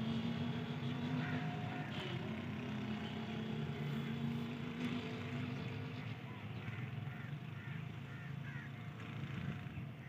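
Diesel-electric locomotive engine running under power, a steady low drone that weakens about six seconds in as the driver eases back the throttle notches.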